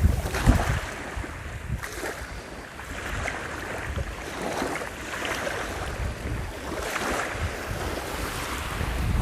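Black Sea surf washing onto the beach in surging swells, with strong wind buffeting the microphone in low rumbling gusts, the loudest about half a second in.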